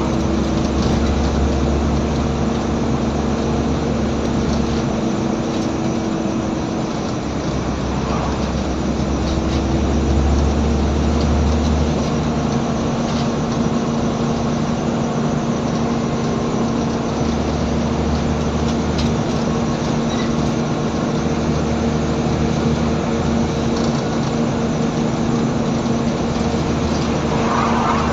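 Scania N94UB single-deck bus's diesel engine working hard under way, a steady droning note with a low rumble that swells and drops away a few times as the load or gear changes.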